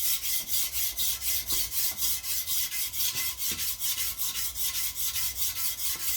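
Rapid, even rasping strokes, about four a second, of metal being hand-worked on a cast-iron Chrysler 318 V8 cylinder head.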